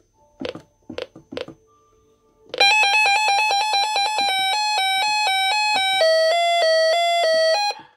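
Reecom R-1630 weather alert radio sounding its siren test. After a few short clicks, a loud electronic alert starts about two and a half seconds in: a fast run of beeping tones stepping up and down in pitch, which cuts off just before the end.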